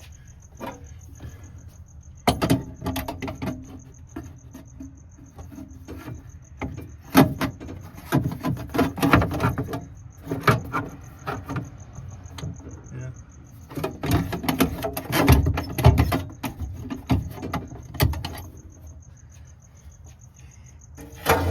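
Intermittent clanks, clicks and rattles of hand tools and metal parts being worked while a car battery is secured in its mounting. The noise comes in bursts, busiest a few seconds in, through the middle, and again about three-quarters through.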